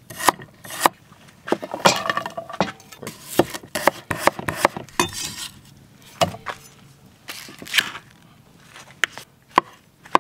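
A cleaver chopping carrots and potatoes on a wooden cutting board: irregular sharp knocks of the blade against the board, with a few clinks.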